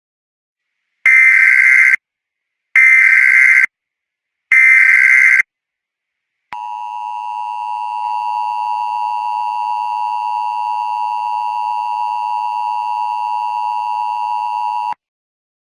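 Emergency Alert System alert opening: three short bursts of SAME header data tones, then a steady two-tone attention signal lasting about eight seconds that cuts off suddenly.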